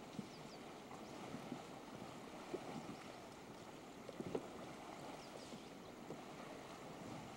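Faint river water lapping and splashing, with a few soft knocks scattered through, over a steady hiss.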